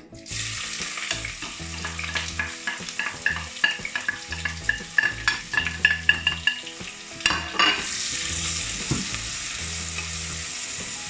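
Chopped onion sizzling and spitting as it goes into hot oil in a stainless steel pot. A wooden spoon scrapes it off a plate and stirs it, knocking repeatedly against the plate and pot.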